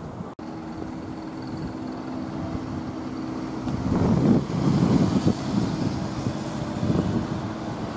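Outdoor car-park ambience: a vehicle engine running steadily with a low, even hum. A louder low rumble swells for a second or so around the middle.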